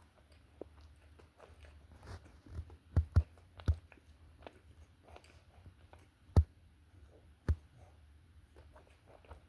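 Someone biting and chewing a soft lemon-frosted breakfast bar close to the microphone. Scattered mouth and handling clicks are broken by a few sharp knocks, the loudest about three seconds in and again past six seconds.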